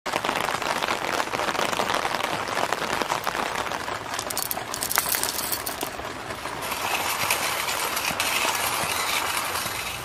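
Roasted coffee beans clinking and rattling as they are spooned from a plastic tub into a hand coffee grinder, over a steady crackling patter.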